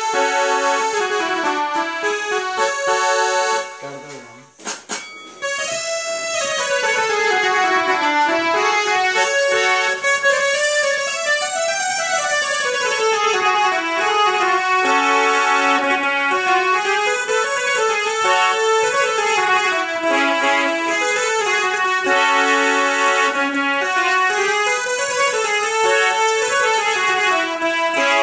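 Harmonium fitted with a Casio electronic keyboard unit being played through a small speaker, which needs no bellows pumping. It plays a melody in quick runs up and down. There is a short break with a click about four to five seconds in, then steady playing.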